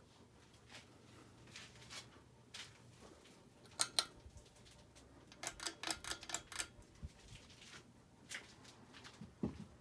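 Ceiling fan running with a faint steady motor hum, under a string of sharp clicks and rattles: a loud pair about four seconds in, a rapid burst of clicks around six seconds, and a few scattered ticks near the end.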